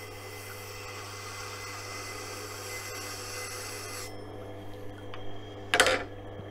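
Tormek wet grinder motor humming while a clamped kitchen knife is drawn across the 1000-grit CBN wheel, a steady scraping hiss of steel on the wheel. About four seconds in the grinding stops suddenly as the blade comes off the wheel. Near the end comes a brief loud clatter as the knife in its jig is repositioned on the support bar.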